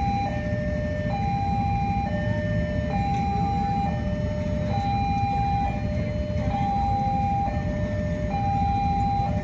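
Railway level-crossing warning alarm sounding a two-tone electronic chime, a higher note and a lower note taking turns about every second, warning that a train is approaching while the barrier is down. A low steady rumble runs underneath.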